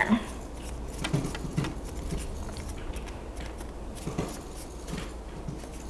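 Faint handling noise of folded cardstock held and pressed between the fingers to seal a glue-stick edge: a few soft scattered ticks and light rustles.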